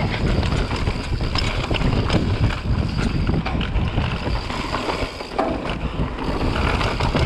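Wind buffeting the camera microphone over the tyres rolling on a dry dirt trail during a fast mountain-bike descent, with scattered short rattles and knocks from the bike over rough ground.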